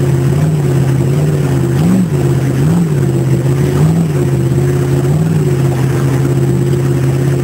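A 383 small-block Chevy stroker V8 with an Isky Mega hydraulic marine camshaft running steadily during camshaft break-in, its note wavering slightly. There are four brief rises in engine speed between about two and five seconds in.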